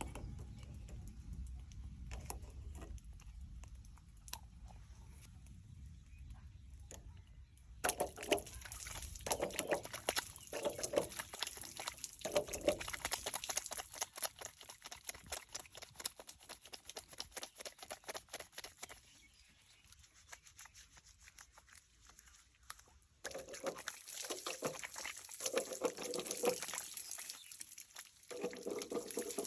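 Water pouring and trickling in two long spells, one starting about eight seconds in and one a few seconds before the end, with a low rumble before the first.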